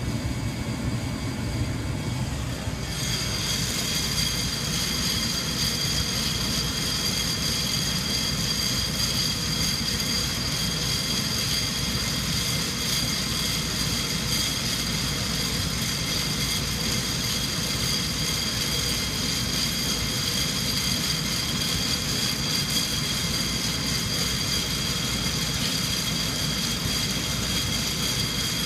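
Sonofresco 1 lb fluid bed coffee roaster running mid-roast: its hot-air blower rushes steadily while the beans churn in the glass roasting chamber. A steady high whine joins about three seconds in.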